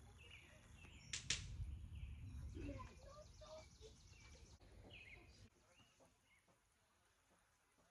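Faint outdoor ambience with a few scattered bird chirps and a sharp click about a second in.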